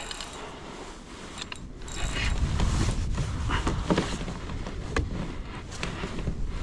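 Spinning fishing reel clicking and grinding under load while a large redfish is being fought. A low rumble comes in about two seconds in.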